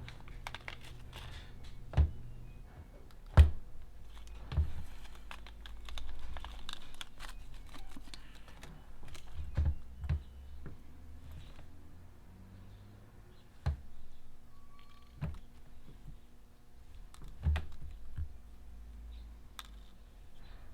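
Small kit parts and tools being handled on a workbench: irregular clicks, taps and knocks as pieces are picked up and set down, the loudest knock about three and a half seconds in.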